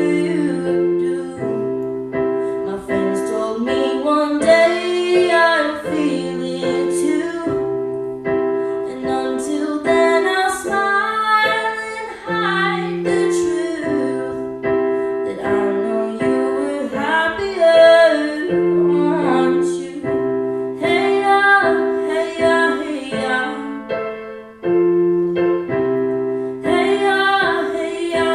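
A young woman singing while accompanying herself on an electric keyboard. Held piano chords change every second or two beneath her wavering melody.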